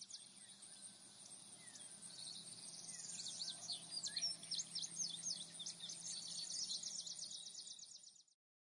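Faint outdoor nature ambience: a dense chorus of quick, high chirps with a few lower sliding whistles over a low hum, fading in, swelling towards the middle, and fading out just before the end.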